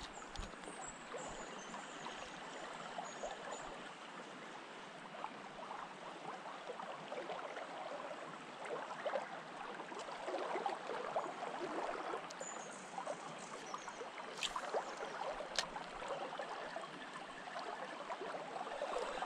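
Shallow river flowing over a stony bed, a steady babble of running water. Two sharp clicks about a second apart come roughly three-quarters of the way in.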